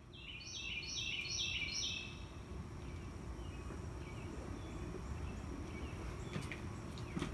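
Carolina wren singing one loud song of four quick repeated phrases in the first two seconds, over a steady low background rumble. Two faint clicks come near the end.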